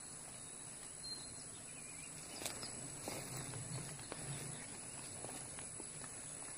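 Quiet woodland ambience with a few soft, scattered rustles in the leaf litter and a faint steady high-pitched hum in the background.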